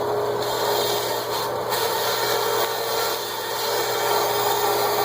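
Bandsaw running and cutting through 3/4-inch MDF, a steady motor hum and tone under the rasping of the blade in the board, rising and falling a little as the cut goes on. The blade is dull.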